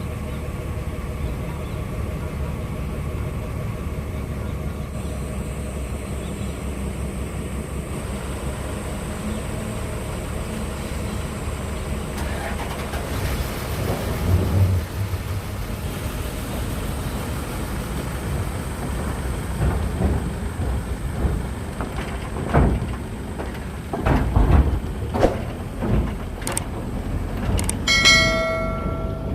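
Steady low rumble of a car driving, heard from inside the cabin. There are several sharp knocks in the second half, and a short tone with several pitches near the end.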